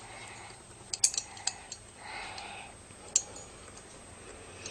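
A few faint, light clicks and clinks from a small model orrery's gears and arms being turned by hand.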